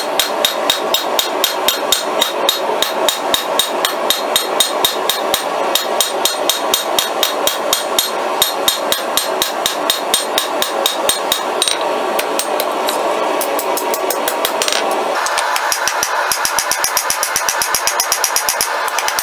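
Hand hammer beating red-hot steel on an anvil, a steady run of blows about two to three a second as the scorpion's body is widened. Near the end the blows come quicker and ring brighter.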